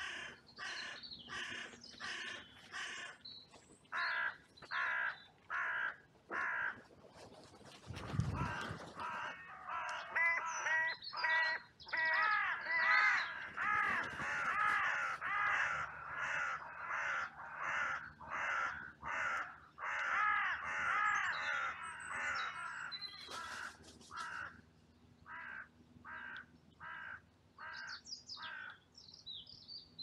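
Carrion crows cawing in long runs of harsh calls, about two a second. In the middle stretch several crows call over one another in a dense chorus, then the calls thin out again. There is a brief low thud about eight seconds in.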